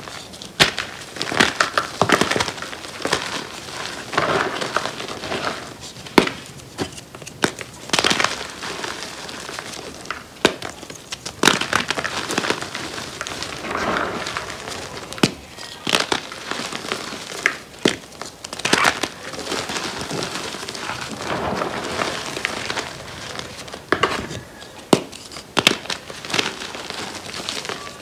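Hands squeezing and crushing powdery gym chalk, giving dry crunching with irregular sharp crackles as clumps of pressed chalk break apart.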